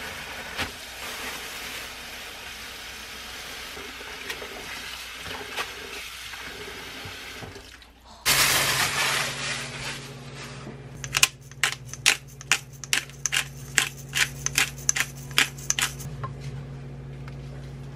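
Kitchen tap running steadily into a plastic basin of mung bean sprouts. Then, after a cut, a hand pepper grinder is twisted: a loud grinding rasp, then a quick run of sharp clicks about two a second. A steady low hum sits underneath.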